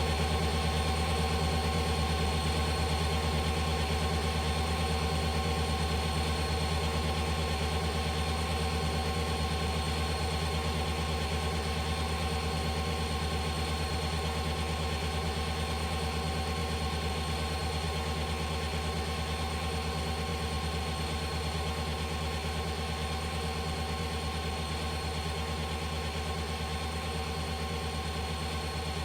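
An engine running steadily at idle, a constant low hum with thin steady whines above it, slowly getting a little quieter, with no revving or change in pitch.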